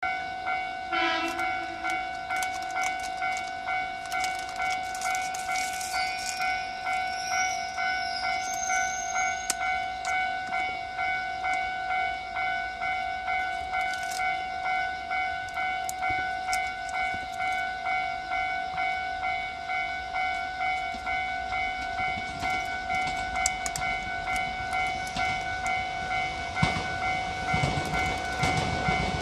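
Level crossing warning bell ringing in an even, repeating pulse, while a JNR 169 series electric train approaches and its running noise grows loud near the end.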